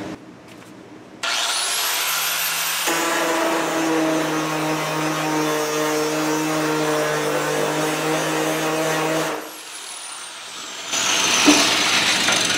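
Angle grinder fitted with a shrinking disc, spinning up about a second in and held against the steel bonnet panel, running steadily with a humming tone as it heats a high spot to shrink the metal. It is switched off and winds down with a falling whine, then a brief hiss follows near the end.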